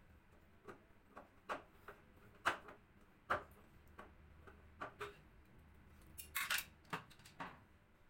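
Light, irregular plastic clicks and taps from hands working on a top-loading washing machine's top panel, about a dozen in all, with a short scraping rustle about six and a half seconds in.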